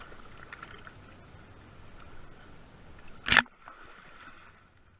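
Water sloshing as a hooked tarpon thrashes at the boat side, with a single loud splash from the fish about three seconds in.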